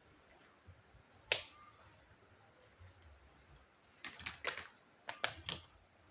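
Sharp clicks and clacks of small plastic toy pieces being handled and knocked together: a single loud click about a second in, then a quick cluster of several near the end.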